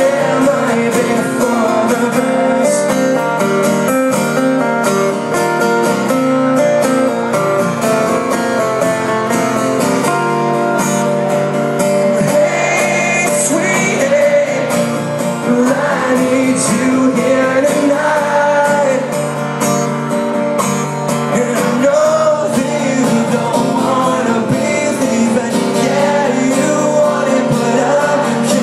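Acoustic guitars played live in concert, with a voice singing over them.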